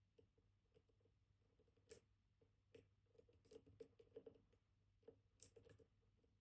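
Faint, irregular small clicks and ticks of a dimple pick working the spring-loaded pins of a Kaba Titan Combi dimple lock under tension, with a sharper click about two seconds in and a cluster of quicker ticks a little past the middle.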